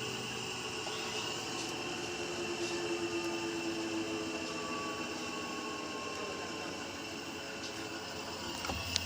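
Beko washing machine running in its test mode, giving a steady mechanical hum and hiss. There is a short knock near the end, after which a deeper hum comes in.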